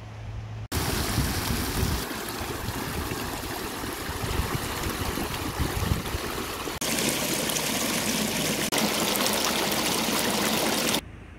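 Shallow river water rushing over stones and rocks in a steady, loud rush. It starts suddenly about a second in, changes in brightness a few times, and stops suddenly near the end.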